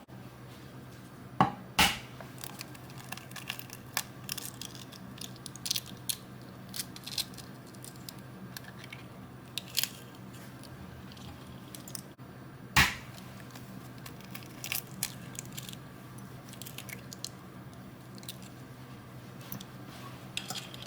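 Kitchen food-prep handling noises: scattered light clicks, taps and crunchy rustles, with a few sharper knocks, over a steady low hum.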